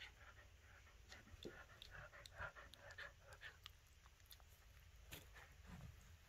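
Faint sounds of a Shih Tzu–Corgi mix dog nosing and mouthing a plush shark toy with rope teeth: soft snuffling and rustling, densest in the first half, with scattered small clicks.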